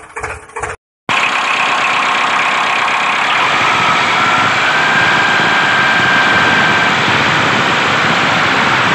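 A motor starts running about a second in, after a brief cut to silence, and keeps going with a steady, even hiss and a faint wavering whine on top.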